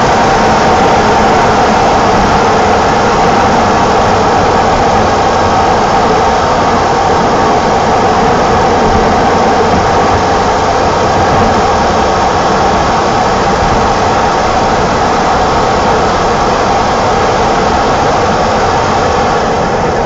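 BMW E28 520i's 2-litre M20 straight-six, a high-mileage engine of nearly 400,000 km, running steadily with the car under way: an even, dense drone with no rise or fall in pitch, easing off very slightly near the end.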